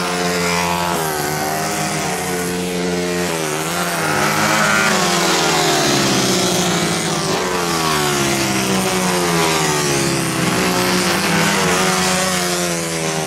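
Two small single-cylinder CG-class racing motorcycles at full race pace, their engine notes repeatedly climbing and dropping in pitch as the riders accelerate, shift and back off through the bends.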